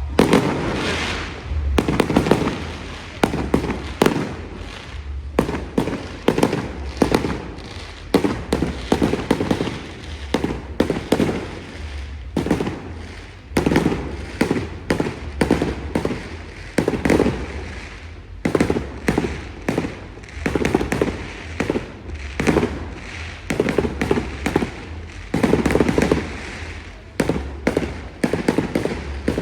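Fireworks display: aerial shells bursting in a continuous barrage of sharp bangs, several a second at times, with no pause.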